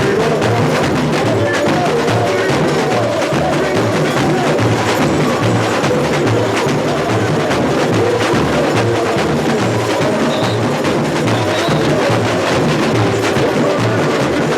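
Samba bateria playing at full volume: surdo bass drums pounding a steady repeating pulse under dense snare and small-percussion strokes.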